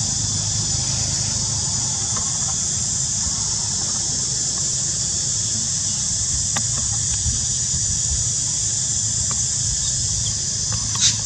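Steady high-pitched drone of insects with a low rumble underneath and a few faint ticks.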